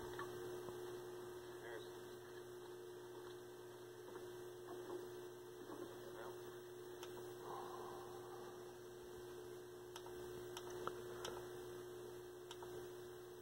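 Faint steady mains hum from a running vacuum-tube television set, with a few faint clicks in the second half.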